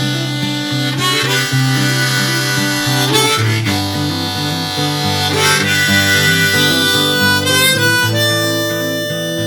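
Harmonica playing an instrumental solo with held and bending notes over acoustic guitar accompaniment, a break between sung choruses of a folk song.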